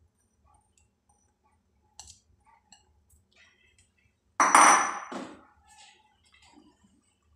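Kitchen utensils clattering: faint clicks and a light knock, then about four and a half seconds in a sudden loud metallic clatter with a brief ring, followed by a second knock.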